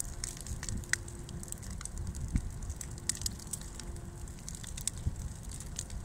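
Brush bonfire of dry branches burning, the twigs crackling and popping irregularly over a low rumble.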